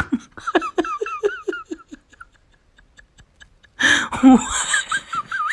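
Computer keyboard typing, quick even clicks, broken by a loud sudden burst at the start and a run of short laughing voice sounds, then a second loud burst of voice with laughing about a second and a half before the end.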